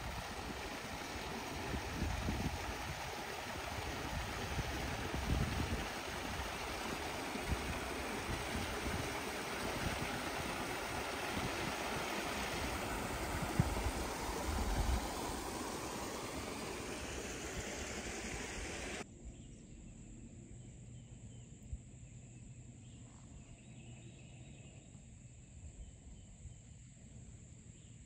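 Small waterfalls spilling over limestone ledges into the river, a steady rushing hiss, with wind buffeting the microphone. About two-thirds of the way through, the sound cuts abruptly to a much quieter outdoor background.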